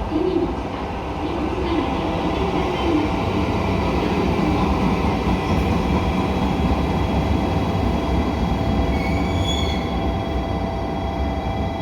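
Train moving through a station: a steady low rumble with several held tones, and a few brief high wheel squeals about nine to ten seconds in.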